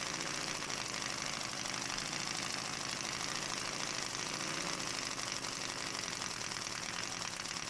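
Model five-cylinder radial engine running steadily on compressed air, driving a propeller: a fast, even chatter of exhaust beats over a strong hiss of escaping air.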